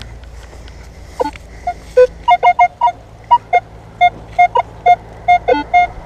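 Minelab X-Terra Pro metal detector sounding a run of short beeps as the coil sweeps over a buried target, starting about a second in. Most beeps are at one mid pitch, with a few lower and higher tones between them.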